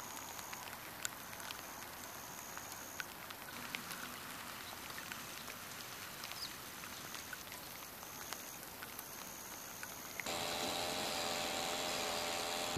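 Light rain falling on the standing water of a ditch and flooded rice paddy: a soft even hiss with scattered small drop splashes, and a thin high tone coming and going in the background. About ten seconds in it changes to a louder, steadier background.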